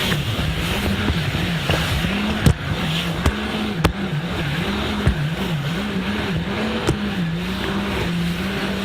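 Jet ski engine running at low speed, its note wavering up and down over and over, with a few sharp knocks along the way.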